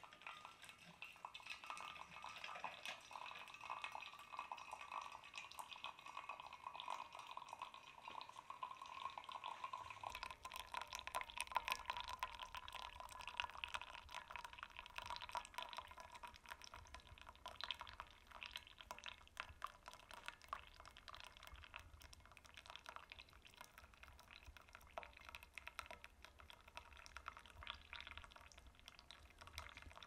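Brewed coffee trickling in a thin stream from the spigot of a Belgian balance siphon coffee maker into a stainless steel mug: a quiet, steady pour with a light patter of splashes.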